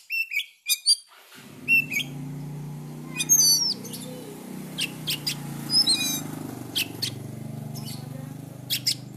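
Oriental magpie-robin singing: a run of sharp, separate notes and short whistled phrases with gaps between them. A steady low hum comes in about a second and a half in, under the song.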